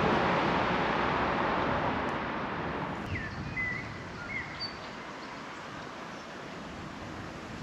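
A loud rushing noise fades away over the first three seconds. Then comes quieter outdoor ambience, with several short, high bird chirps from about three seconds in.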